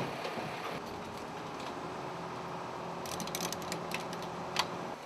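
A fishing boat's engine running steadily, with a cluster of light metallic clicks and rattles about three to four seconds in and a single sharper click shortly before the end.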